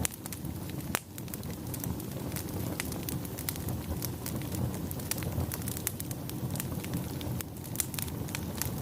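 Wood fire crackling, with frequent sharp, irregular pops and snaps over a steady low rumble of the burning.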